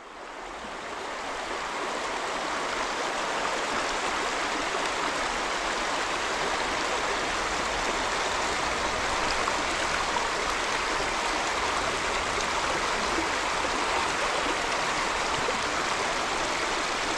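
Shallow rocky creek running steadily over stones in riffles, a continuous rushing and babbling of water close by. It fades in over the first two seconds, then holds even.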